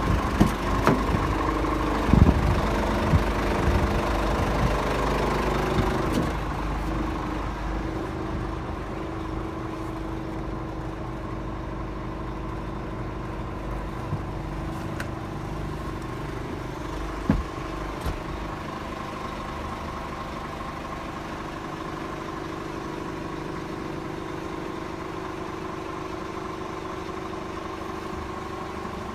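Scania R450 truck's diesel engine idling steadily, with a few sharp knocks. About six seconds in the sound becomes quieter and duller, as heard from inside the cab.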